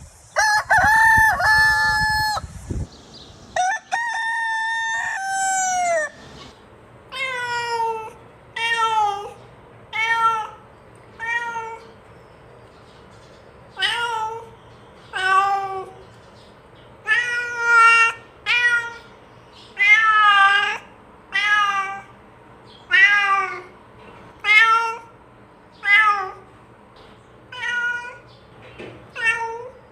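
A rooster crowing twice, then a domestic cat meowing over and over, short calls about one to one and a half seconds apart.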